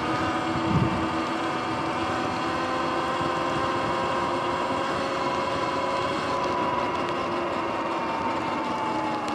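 Sur-Ron electric bike's motor whining steadily over tyre hiss on wet pavement and wind noise; the whine slowly falls in pitch in the second half as the bike slows. A short low thump about a second in.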